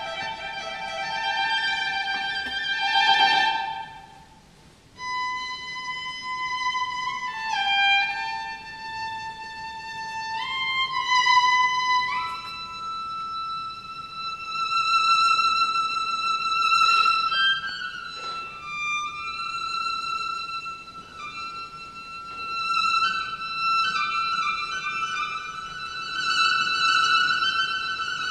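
Solo violin playing a slow melody of long held notes, sliding between some pitches, with a brief break about four seconds in.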